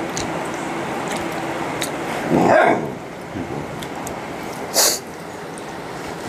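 A dog barks once, about two and a half seconds in, with a short sharp noise about two seconds later.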